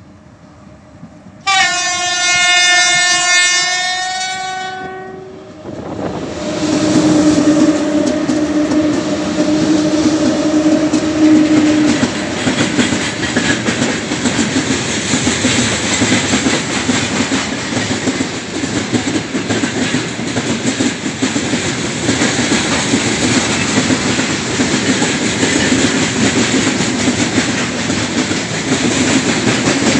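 2ES5K "Ermak" electric freight locomotives sound one long horn blast of about three and a half seconds as a greeting to the trackside, then pass close by with a steady drone. A long train of loaded tank cars follows, its wheels clicking over the rail joints in a continuous clickety-clack.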